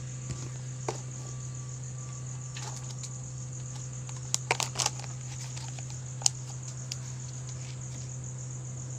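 Insects chirping steadily in a high, pulsing drone over a steady low hum, with a quick cluster of sharp taps about four and a half seconds in and one louder tap a little before the end.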